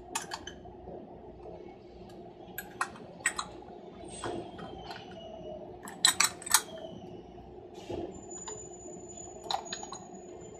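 Metal deadbolt hardware clinking and clicking as the parts are fitted back together: scattered light clicks, with three sharp ones in quick succession about six seconds in, over a faint steady hum.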